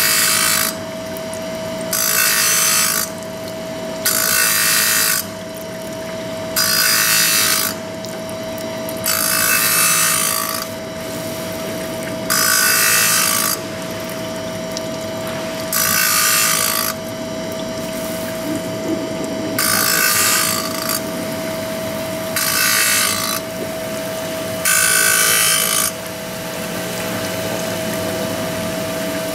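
Arterki MF127B automatic saw blade grinding machine grinding a circular saw blade's teeth one at a time: a rasping burst about a second long every two to four seconds as the wheel takes each tooth, over the steady hum of the wheel motor.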